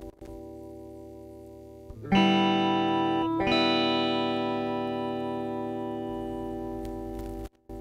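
Electric guitar chords played through a Dan Armstrong Orange Squeezer compressor pedal. A soft chord, then a loud strum about two seconds in and another a second later that rings for about four seconds, fading slowly, before being cut off sharply near the end and replaced by a new chord.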